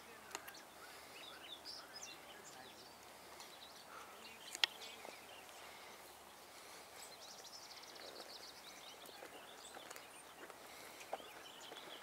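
Faint outdoor ambience with scattered small clicks and rustles of a squirrel rummaging and feeding among sunflower seed hulls and twigs. There is one sharper click about four and a half seconds in, and a faint, rapid high trill a little past the middle.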